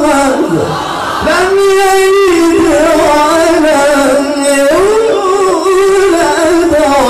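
A male qari's melodic Quran recitation (tilawah): two long phrases of held, ornamented notes with a wavering pitch, the voice alone.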